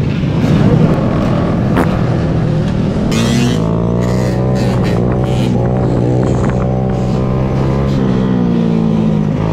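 Motorcycle engines running steadily, with music playing over them.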